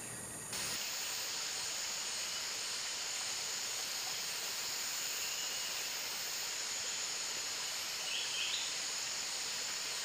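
Steady, high-pitched drone of forest insects over a constant hiss, with a short faint chirp about eight seconds in.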